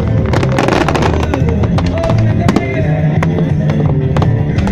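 Fireworks display set to music: recorded music plays over loudspeakers while fireworks go off, with many sharp cracks and bangs on top of it.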